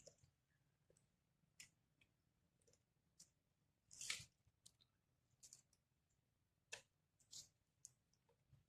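Faint, scattered clicks and short crunches of a small pet monkey nibbling food, the loudest about four seconds in.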